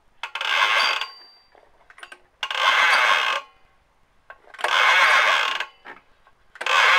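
Recoil pull-starter of a 79.5 cc generator engine pulled four times, each pull a raspy mechanical whirr of about a second, roughly every two seconds. The engine spins over while the valve train stays still, which the owner takes as a sign that the crank and cam are not connecting.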